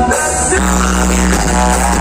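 Loud music over a huge 'sound horeg' loudspeaker rig, with a heavy, sustained bass line and a wavering melody above it; the bass shifts to a new note about half a second in.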